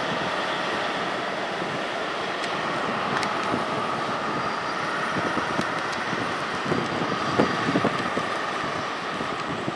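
Class 43 HST power car running as the train moves slowly past, a steady engine hum with a few sharp knocks about three-quarters of the way through.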